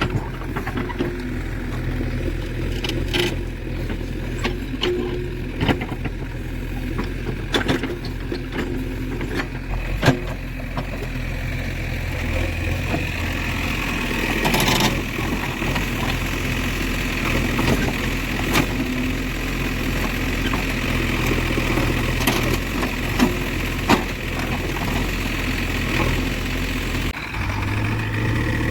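JCB 3DX backhoe loader's diesel engine running steadily at work, with scattered knocks and clicks and a swell of hissing noise about a quarter of a minute in.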